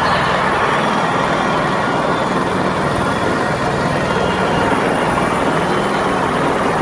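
Large stadium crowd making a loud, steady din.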